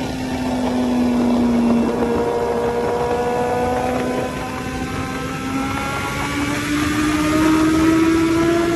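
Kawasaki ZX-14R inline-four engine running at road speed. Its pitch dips slightly early on, then climbs steadily over the last few seconds as the bike accelerates, over the rush of wind noise.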